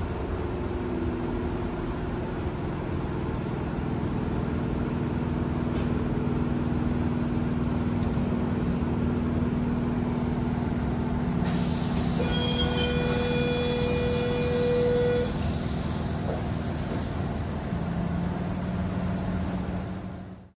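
Running noise inside a Goninan-built Tangara electric train in motion: a steady hum from the traction equipment and wheels on the rails. About twelve seconds in, a held tone sounds for about three seconds over the running noise.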